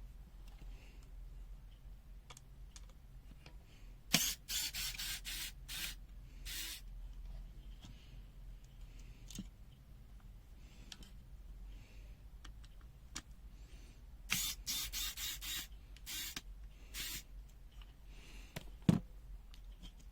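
Plastic multimeter case being handled and taken apart: two runs of short scraping and clicking noises, one about four seconds in and one about fourteen seconds in, with a sharp click near the end.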